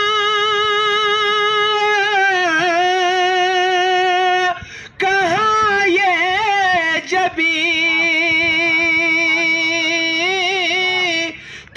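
A single voice singing an Urdu naat (devotional poem in praise of the Prophet), drawing out its syllables in long held notes with a wavering vibrato. There is a short breath about halfway through, then a run of melodic turns and another long held note that stops near the end.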